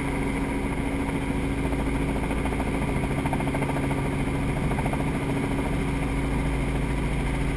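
Small helicopter's engine and rotor heard from inside the cabin in flight: a steady, even drone with a constant low hum.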